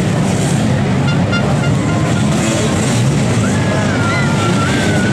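Motocross motorcycles running on the track, a steady dense engine drone with crowd chatter over it. A quick string of short beeps comes about a second in, and a rising, wavering whine near the end.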